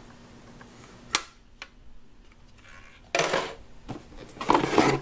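Plastic toy pieces, a Play-Doh toy oven and cookie mold, being handled: a sharp click about a second in, a small tick just after, then two louder bursts of plastic clattering and rubbing in the second half.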